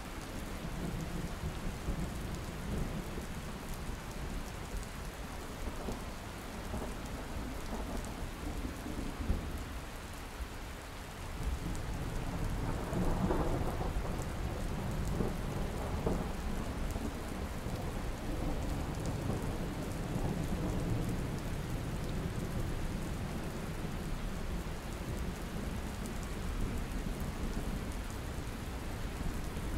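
Steady rain with thunder rumbling low, swelling to its loudest near the middle.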